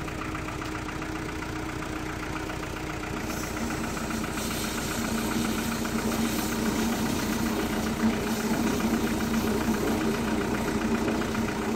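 Vehicle engine running steadily, growing gradually louder from about three or four seconds in.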